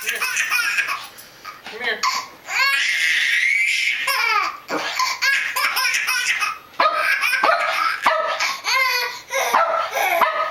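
A baby laughing hysterically in repeated high-pitched bursts, with one long squeal of laughter about three seconds in.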